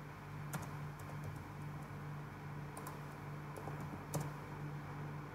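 A handful of isolated computer keyboard keystrokes as numbers are typed in, the loudest about four seconds in, over a steady low hum.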